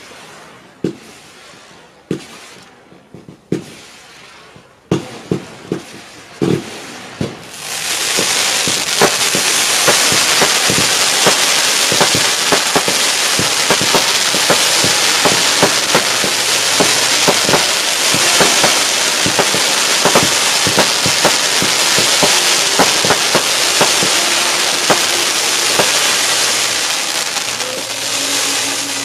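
Fireworks going off: several separate bangs in the first seconds, then, about seven seconds in, a loud, dense crackling of many small pops that carries on until near the end.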